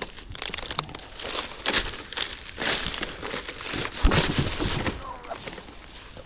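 Leaves and branches rustling and crackling close by, in irregular bursts, as a snagged lure is worked free of a tree.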